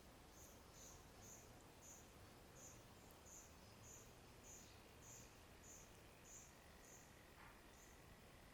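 Faint cricket chirping in a regular series, a little under two high chirps a second, over a low steady background hiss. A thin steady high tone joins about six and a half seconds in.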